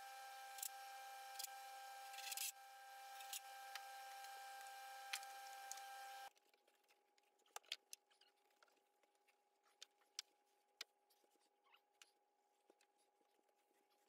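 Near silence: a faint steady hum with a few light clicks, which drops off about six seconds in to fainter room tone with scattered soft ticks.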